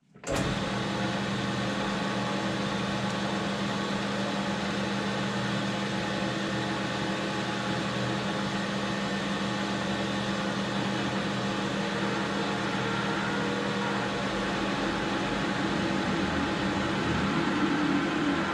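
AL960B metal lathe running steadily with a constant motor and gear hum, growing slightly louder and rougher in the last few seconds.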